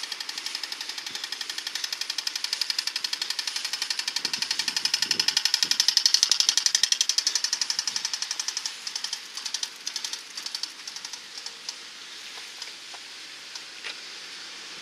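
Audible tick signal of a pedestrian and cyclist crossing light ticking fast and evenly, loudest about six seconds in, then thinning to scattered ticks and fading.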